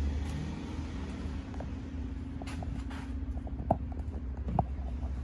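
Hand work on a car door's inner panel: a few light clicks, then two sharper knocks about a second apart, over a steady low hum.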